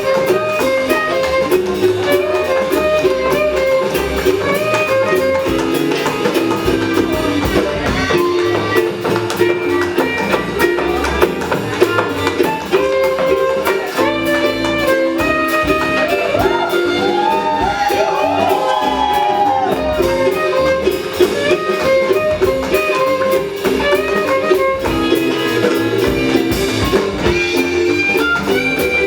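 Live swing jazz band music led by guitar, with a steady run of sharp percussive clicks from tap shoes over it.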